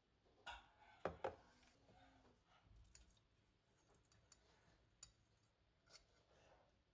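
A few faint, short clicks or snips of hand work: a close pair about a second in, the loudest, and single ones about five and six seconds in.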